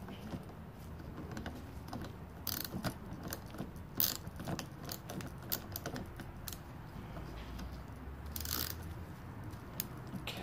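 Hand socket ratchet clicking in short, uneven runs as the nuts holding a Weber 34 ICT carburettor to its intake manifold are tightened by hand.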